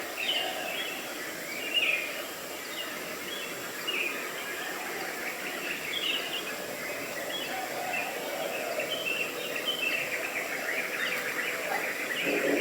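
Birds chirping in short calls over a steady background hiss; the calls grow busier near the end.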